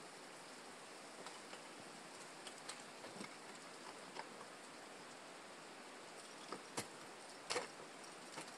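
Ice tools and crampons striking a frozen waterfall: scattered faint ticks, then two sharper strikes a little under a second apart about two-thirds of the way through, over a steady faint hiss.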